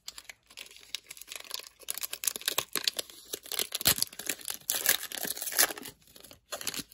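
Foil wrapper of a Pokémon trading card booster pack being torn open and handled, a dense run of crinkling crackles, loudest about four seconds in, ending shortly before the end.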